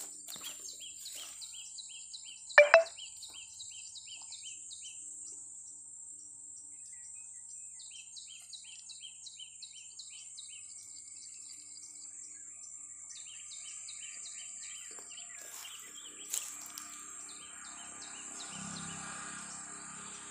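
A songbird sings runs of quick repeated chirps in several separate phrases over a steady high buzz of insects. Two loud thumps come close together about two and a half seconds in.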